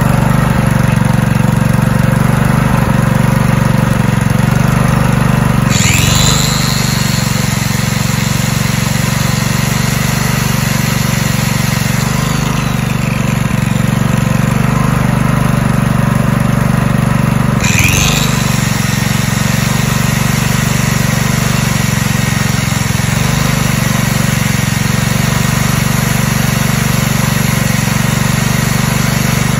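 Honda GX120 single-cylinder engine running the generator steadily. An angle grinder powered by the generator spins up with a rising whine about six seconds in, runs, then spins up again about eighteen seconds in, showing the generator is producing power.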